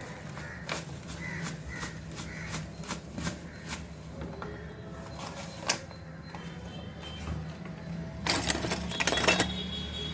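Kitchen utensils clinking and tapping against a mixing bowl while banana bread batter is mixed: scattered sharp clicks, with a denser stretch of rough scraping and clatter about eight seconds in.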